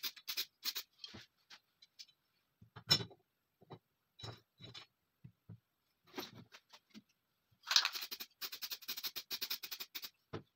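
Small metal TT pistol parts being handled on a paper-covered workbench: scattered light clicks and knocks, with bursts of scraping and rustling at the start and again from about eight seconds in.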